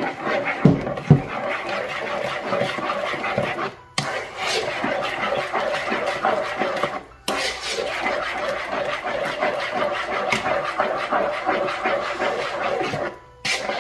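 Cake batter of eggs, sugar, milk and oil being stirred briskly in a mixing bowl, the utensil scraping and clattering against the bowl without pause. Two dull knocks sound about a second in, and the sound breaks off briefly twice.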